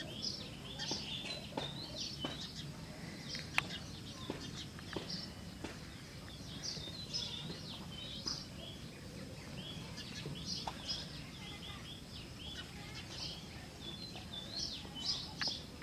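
Birds chirping outdoors, many short high calls following one another throughout, over a steady low background noise, with a few faint clicks and one sharper click about three and a half seconds in.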